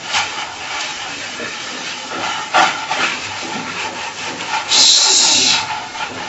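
Hands rubbing dampened semolina between the palms, rolling it into small grains for berkoukes: a continuous gritty rustle of grains, with a louder hissing stretch about five seconds in.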